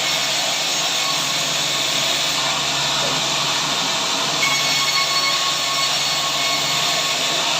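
Sawmill saw running steadily through wood, an even, unbroken noise.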